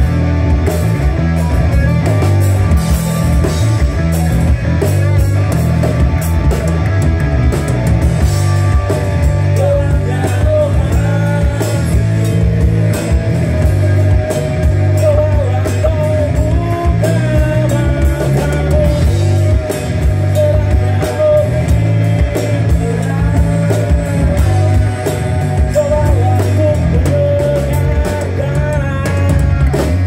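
Live band playing through a PA: an electric bass guitar line, heavy in the low end, over a drum kit, with a vocalist singing into a microphone.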